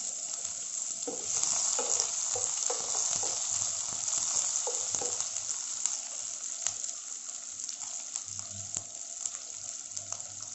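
Freshly added sliced onions sizzling in hot mustard oil in a nonstick kadai. The sizzle is strongest at first and slowly eases. A wooden spatula stirring and scraping the pan adds scattered light clicks and knocks.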